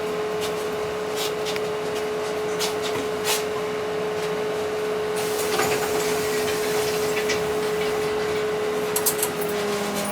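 Trolleybus running, heard from inside the cabin: a steady electrical hum from its equipment, with scattered rattles and knocks from the body and fittings.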